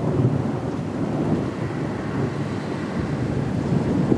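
Thunder rolling in a long, loud, steady rumble during a thunderstorm.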